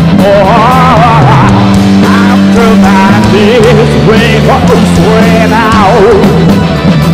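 Live rock band playing loudly: a male vocalist singing wavering, drawn-out notes over electric guitar, bass guitar, drums and keyboard.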